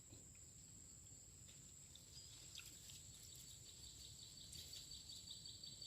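Faint insects: a steady high-pitched drone, joined about a second and a half in by a fast, evenly pulsing chirp.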